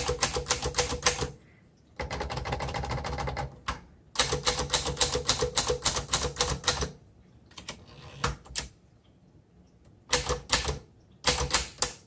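Keys of a 1949 Underwood Champion Finger Flite manual typewriter being typed, the typebars clacking against the platen. It comes in three quick runs of strokes, then slows to a few scattered strikes with pauses between them.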